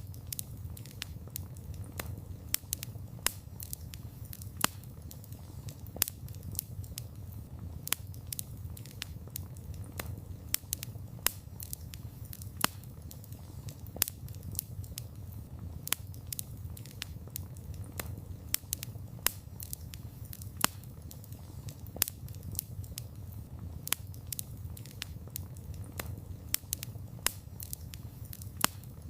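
Campfire of burning wood crackling, with irregular sharp pops of varying loudness over a low, steady rumble of the flames.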